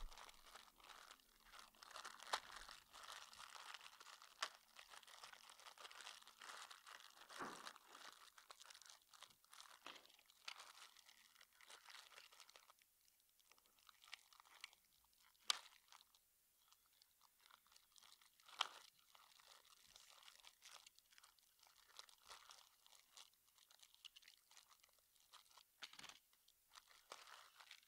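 Faint crinkling and crackling of a thin clear plastic bag being handled and pinched, with a few sharper clicks now and then. It is busiest in the first half and thins out after that.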